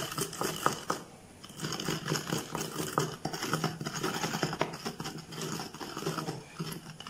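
Wooden pestle pounding and grinding a wet paste of raw mango, sugar and spices in a stone mortar: irregular repeated dull knocks with a short lull about a second in.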